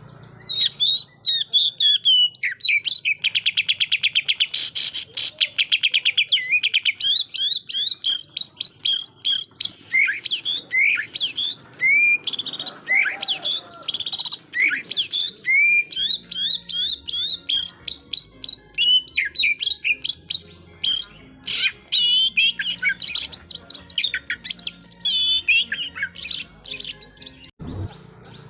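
Oriental magpie-robin (kacer) in full song: a long, varied run of loud whistles and quick up- and down-slurred notes, with a rapid trill of evenly spaced notes a few seconds in.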